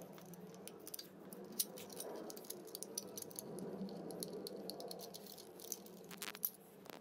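Quick, irregular small clicks and rattles of a screwdriver and loose screws being worked on the inverter control board of a Tesla drive unit, sped up in fast-forward, over a faint steady hum.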